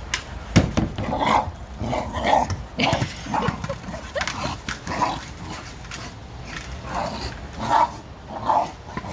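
A dog making short vocal sounds over and over, about one a second, as she plays, nosing a big hard plastic ball around, with a couple of low thumps.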